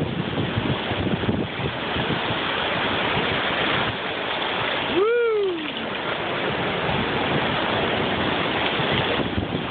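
Small waves washing up on the shore, a steady rush of shallow surf. About halfway through, a short voice sound falls in pitch.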